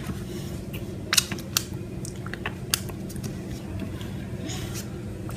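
A few light clicks and taps of a plastic body-wash bottle and slime containers being handled, scattered through, over a faint steady low hum.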